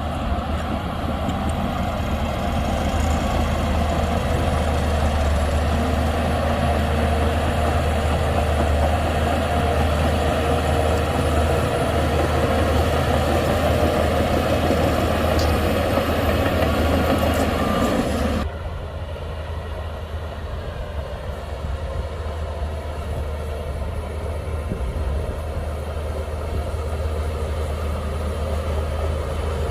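Heavy diesel earthmoving machinery running steadily, with a deep low drone. About two-thirds of the way through the sound changes suddenly, becoming quieter and duller.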